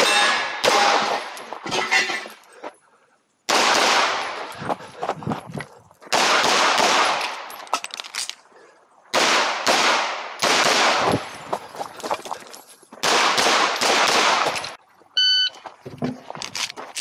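Rapid semi-automatic pistol fire from a SIG P320 compact with a ported slide, in five quick strings of shots with short pauses between them. About 15 seconds in comes a short electronic shot-timer beep, the start signal for a stage.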